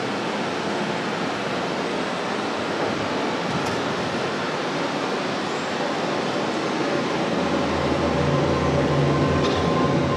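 Steady hiss of heavy rain. About three-quarters of the way through, the low hum of an approaching Kurobe Gorge Railway rail vehicle comes in and grows slightly louder.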